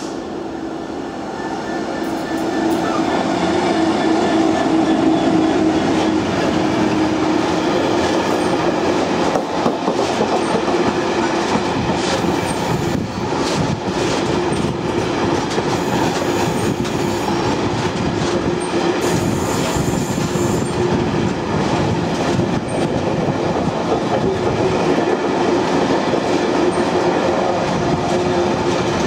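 Freightliner Class 66 diesel locomotive 66615, with its two-stroke EMD V12 engine, passing close by, growing louder over the first few seconds. A long rake of engineers' wagons follows, rolling past with a steady rumble and clickety-clack of wheels over rail joints.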